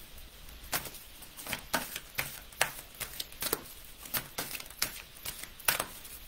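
A deck of oracle cards being shuffled by hand: a string of irregular soft card slaps and clicks, about two a second.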